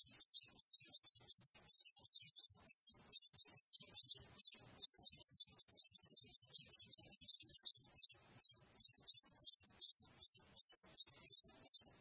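Nestlings begging for food: rapid, high-pitched cheeping, about four to five calls a second, unbroken throughout.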